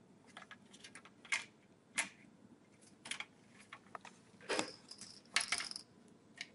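Light, irregular plastic clicks and taps as the locking tabs of a black plastic cover on a computer case's drive cage are pressed down to unclip it, with a brief scrape of plastic about five seconds in.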